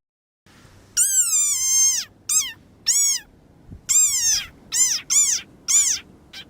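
A string of about seven high, squeaky meow-like calls, each rising then falling in pitch. The first is long and the rest are short and quick.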